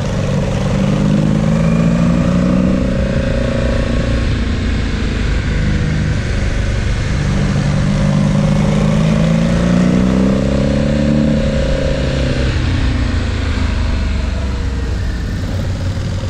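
Motorcycle engine running on the road, its pitch climbing and falling twice as the rider accelerates and eases off, over a steady rushing noise.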